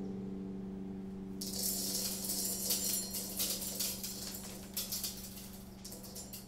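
Dry seeds trickled from the fingers onto a table and instruments: a dense crackling rattle of many tiny clicks that starts about a second and a half in and thins out near the end, over a steady low drone that slowly fades.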